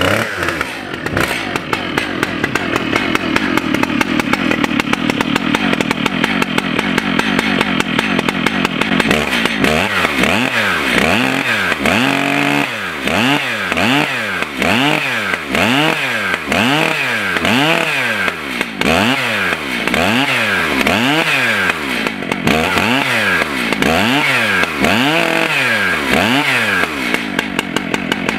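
Stihl chainsaw engine running steadily for several seconds, then revved up and back down over and over, about once a second, before shutting off near the end.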